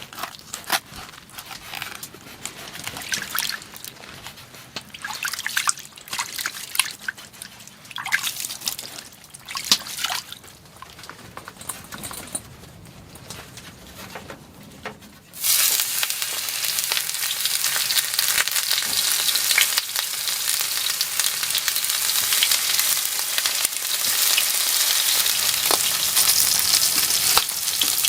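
Scattered clicks and rustles of handling, then about halfway through a sudden, steady sizzle as a fresh brook trout goes into a hot pan and starts frying.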